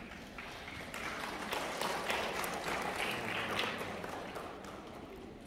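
Audience applauding, swelling about a second in and tapering off toward the end.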